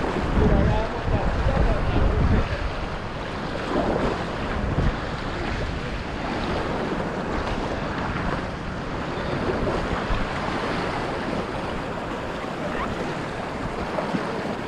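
Fast river current rushing and splashing in choppy whitewater close around a packraft, with wind buffeting the microphone, loudest in the first couple of seconds.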